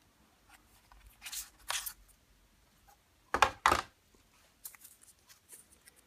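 Packaging being handled and opened: short rustling, tearing swishes, the loudest two in quick succession about halfway through, then light crinkling and small clicks.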